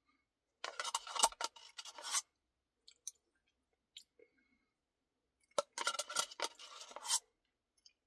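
Close-up eating sounds of a Dairy Queen cookie Blizzard, a plastic spoon scraping the paper cup and crunching: two crackly bursts of about a second and a half each, with a few small clicks between them.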